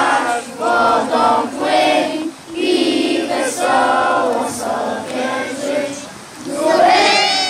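A group of children singing a song together in short phrases with brief breaks. Near the end the voices rise into a shout.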